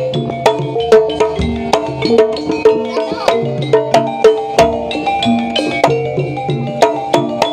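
Jaranan gamelan music: a quick melody of stepped metallophone-like notes over regular sharp drum strokes, playing at a steady pace.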